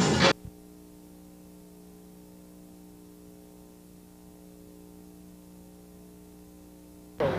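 Loud club music with drums cuts off abruptly a moment in, at a break between recordings. It leaves a faint, steady electrical hum of several fixed tones over the blank stretch of tape. A louder sound starts just before the end.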